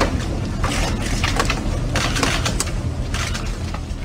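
Classroom noise as children take out their readers and open them: irregular rustles and clicks over a steady low hum.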